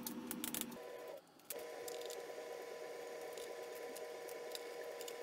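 Quiet workshop room tone: a steady faint hum with a few light clicks of tools being handled on the engine.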